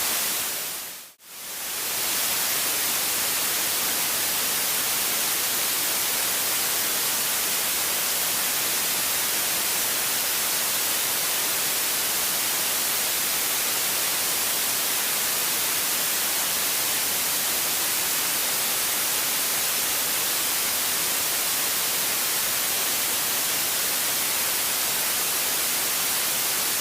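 Steady hiss of static, with no engine tone standing out, cutting out briefly about a second in.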